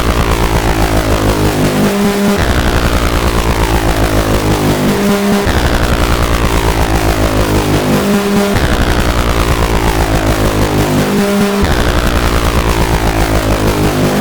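Make Noise XPO analog oscillator playing a low, rich tone under linear frequency modulation with the FM index modulated, so its bright upper overtones sweep downward in pitch. The sweep repeats about every three seconds, each cycle starting after a short break.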